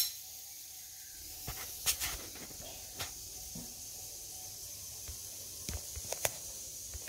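Faint steady hiss with a few scattered light clicks and taps of kitchen utensils and dishes being handled.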